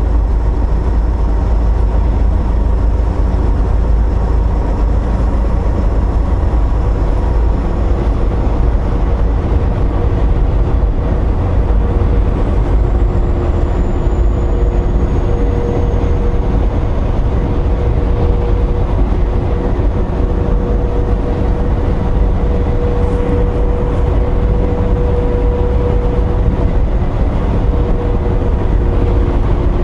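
Inside a semi-truck cab at highway cruising speed, with the truck pulling a loaded trailer. A steady low rumble from the diesel engine and tyres on the road runs under a faint, steady mid-pitched hum.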